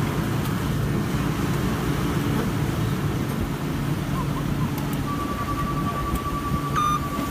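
Tracked loader's engine running steadily at the worksite. About five seconds in a steady high whine comes in, and two short beeps sound near the end.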